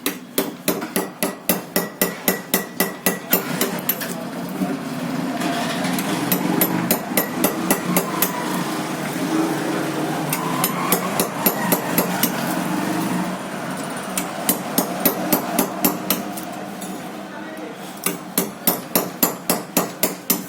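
Hammer blows striking steadily, about three or four a second, in several runs with short pauses between them, as the burnt copper winding is cut off a ceiling fan stator.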